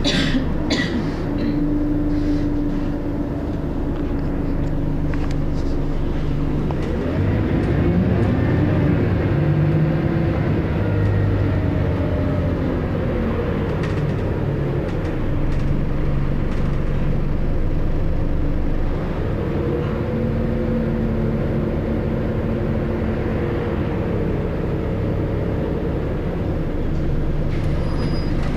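Scania L94UB bus's diesel engine and ZF automatic gearbox heard from inside the saloon as the bus drives. The drone and whine rise in pitch about seven seconds in, fall again around twelve seconds and shift once more later, with a few rattles in the first second.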